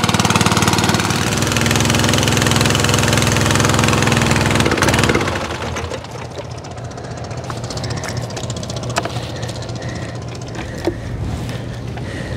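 Small fishing boat's engine running steadily, then throttled back about five seconds in to a quieter idle, with a few light knocks afterwards.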